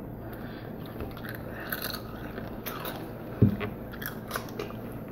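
Takis rolled tortilla chips being bitten and chewed, with irregular crunches and crackles, and one short low thump about three and a half seconds in.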